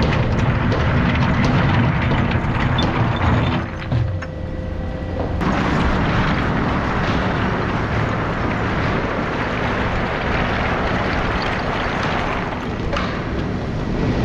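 Excavator's diesel engine and hydraulics running under load. About five seconds in, a dense scraping and clatter of rock takes over and carries on.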